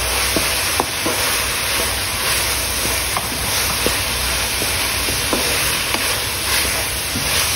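Chopped vegetables sizzling in an oiled wok while a spatula stirs and tosses them, with a few light knocks and scrapes of the spatula against the pan.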